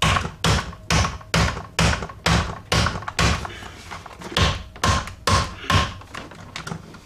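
Hard plastic center-console trim panel being knocked and worked loose by hand. About a dozen sharp knocks come at roughly two a second, then lighter taps near the end.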